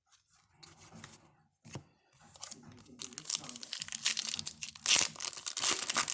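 Trading card pack wrapper being torn open and crinkled. There are a few light handling clicks at first, then loud tearing and crackling about two seconds in that keeps up to the end.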